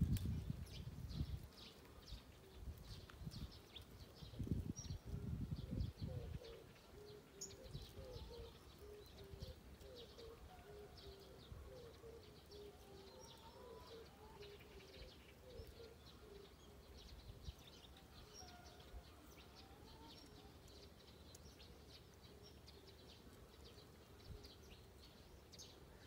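Faint outdoor ambience with birds calling: a run of short low notes through the middle, a few rising calls, and scattered high chirps throughout. Low rumbling bumps of wind or handling on the microphone in the first second and a half and again around four to six seconds in.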